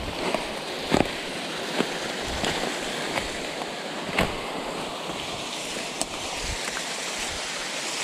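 Steady rushing of a nearby stream, with a few footsteps and snaps of twigs and dry leaves underfoot.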